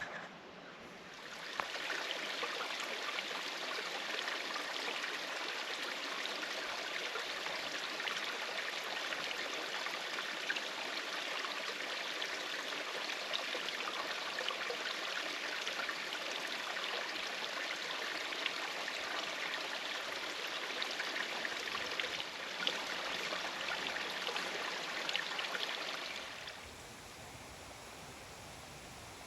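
Creek water rushing steadily. It starts about a second and a half in and cuts off abruptly a few seconds before the end, leaving a faint hiss.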